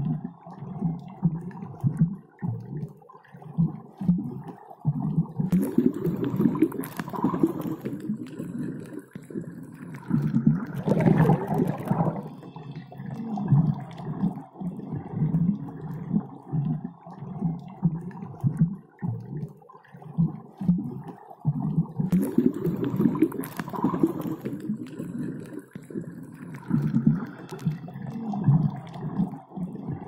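Underwater ambience: low, continuous bubbling and gurgling water with swelling rumbles, looping, so the same passage comes round again about 16 seconds later.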